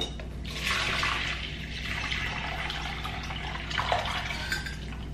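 Bone broth pouring in a steady stream from a glass swing-top jar into a plastic food container, starting about half a second in and tailing off near the end. A light knock comes at the very start.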